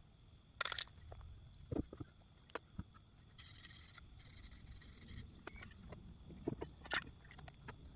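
Sealer being sprayed onto a wooden locomotive body in two hissing bursts of about a second each, midway through. Short knocks and scrapes are heard before and after the bursts.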